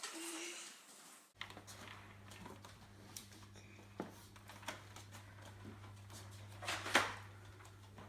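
Quiet room with a steady low hum and scattered faint clicks and knocks, with one sharper click about seven seconds in.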